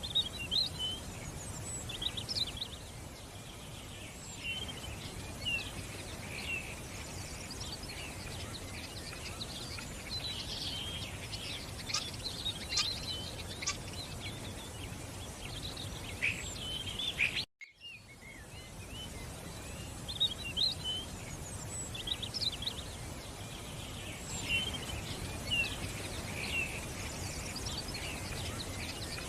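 Songbirds chirping and calling in many short, high notes over a steady background hiss. The sound cuts out completely for a moment about seventeen seconds in, then resumes.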